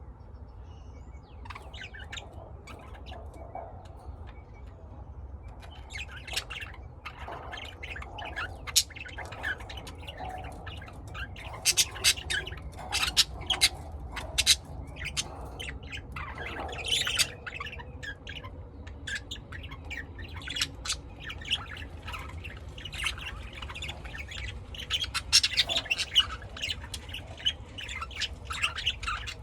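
Pet lovebirds chirping and squawking in short, sharp calls, sparse at first and then coming thick and fast from about six seconds in, over a low steady hum.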